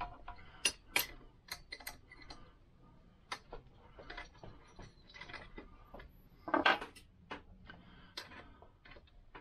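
Steel spanner clicking and clinking on double-nutted studs as they are turned into a Lambretta engine's aluminium casing: scattered light metallic ticks, with a louder metal clatter about six and a half seconds in.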